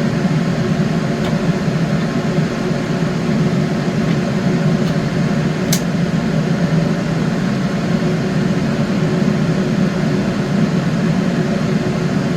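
Small electric kitchen appliance motor running steadily, a low hum with a faint steady whine over it. A single brief high click comes about six seconds in.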